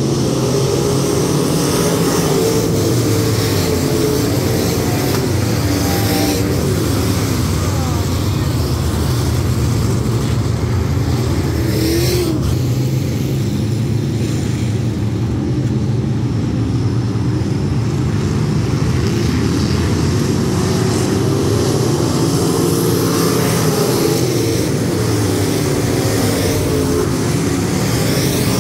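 A pack of USRA limited modified dirt-track race cars running at speed, their V8 engines droning together loudly, with revs rising and falling as cars go past.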